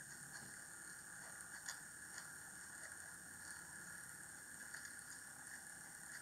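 Faint small clicks and ticks of a stiff wire end being worked through the tiny ring terminal on a small electric motor, with the sharpest click about a second and a half in, over a faint steady hiss.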